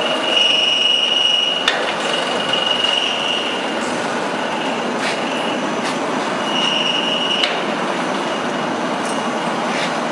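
Fried instant noodle production line running: a steady mechanical noise with a high squeal that comes and goes, and a few sharp clacks.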